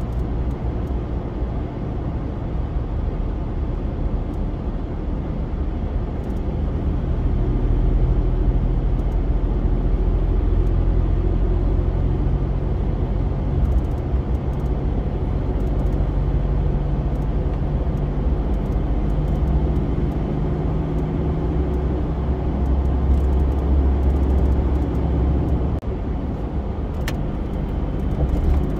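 Car engine and tyre-on-road noise heard from inside the cabin while driving on a highway, a steady rumble with an engine hum that shifts in pitch a few times.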